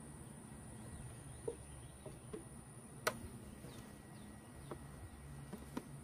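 Faint outdoor ambience: a steady high-pitched whine under a low rumble, with a few sharp little clicks, the loudest about halfway through.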